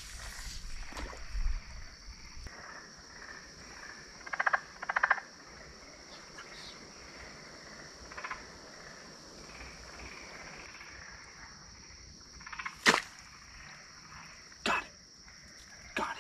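Night chorus of insects trilling steadily and high, with a frog giving short pulsed croaks twice a few seconds in. Several sharp cracks or snaps come near the end.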